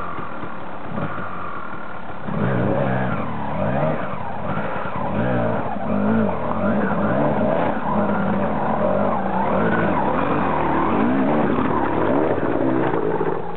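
Enduro dirt bike engine revving up and down over and over, its pitch rising and falling with each blip of the throttle, louder from about two seconds in.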